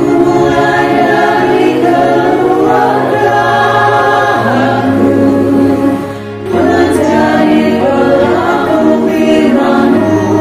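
Women's choir singing an Indonesian Christian hymn in long held phrases, with a brief break between phrases about six seconds in.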